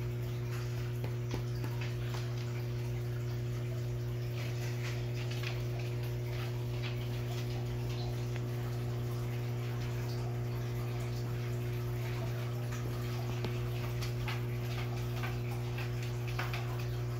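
Steady low hum of aquarium equipment, typical of an air pump, with faint irregular ticking and fizzing from air-stone bubbles in the tank water.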